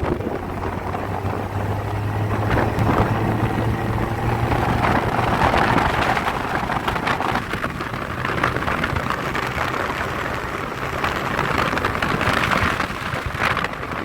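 Off-road jeep's engine running steadily as it drives, under a loud rushing noise that swells and eases twice.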